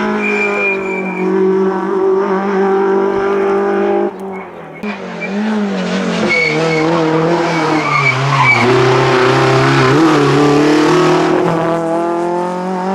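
Peugeot 106 rally car's engine running hard at high revs. The sound changes abruptly about four seconds in; after that the pitch drops and then climbs again as the car accelerates, with tyres skidding on the road through the middle part.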